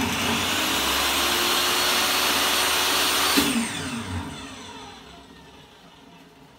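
DeWALT DWE7492 table saw's direct-drive universal motor and blade running at full speed, with no soft starter fitted. About three and a half seconds in it is switched off, and its whine falls in pitch as the motor and blade coast down.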